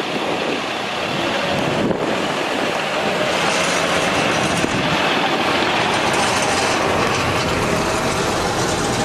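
Isuzu 6HK1 7.8-litre inline-six turbo diesel of a GMC T7500 truck running steadily, with a thin steady whine coming in about halfway.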